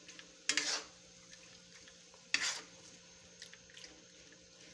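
A spoon scraping and knocking against a metal pan while stirring jackfruit in thick sugar syrup for jam. There are two louder scrapes, about half a second and about two and a half seconds in, and a few light clicks near the end.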